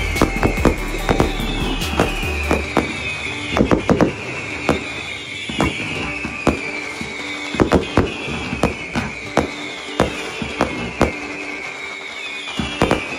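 A fireworks display: firework bangs and cracks going off at an irregular pace, several a second at times. Music plays under them, with a high falling phrase repeating about every two seconds.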